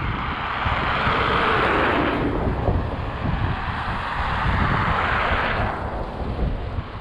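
Two vehicles passing one after the other, their tyre and engine noise swelling and fading over about two seconds each, with low wind buffeting on the microphone throughout.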